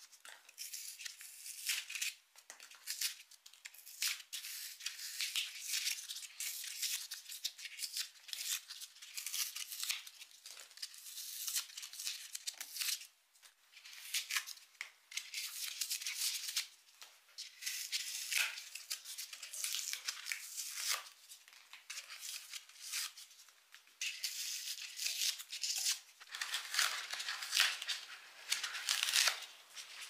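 White foam rustling, crunching and squeaking as hands press rocks into it and work it by hand, in uneven dry bursts with many small crackles.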